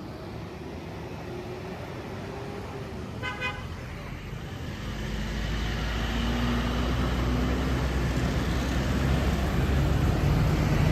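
Road traffic with a short horn toot about three seconds in. After it a bus approaches, its engine getting steadily louder.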